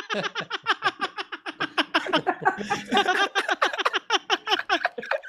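Men laughing hard together: a long, unbroken run of short ha-ha pulses, about six a second.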